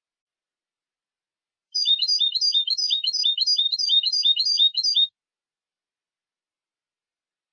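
A European goldfinch singing one fast run of about a dozen repeated high two-note chirps, some three seconds long, starting about two seconds in.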